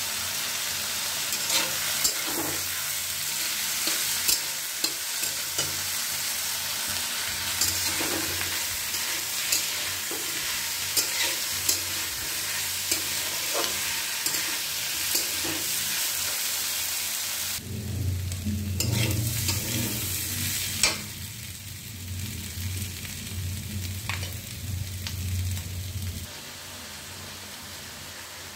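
Potatoes and ivy gourd sizzling as they stir-fry in a steel kadhai, with frequent clicks and scrapes of the spatula against the pan. A bit over halfway through, the sizzle drops sharply and a low hum is heard for several seconds before it quietens.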